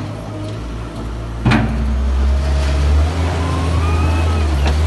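Weidemann compact wheel loader's engine running steadily, then revving up from about two and a half seconds in as it works the bucket, with a faint rising whine. A sharp metal clank about a second and a half in, and a lighter knock near the end.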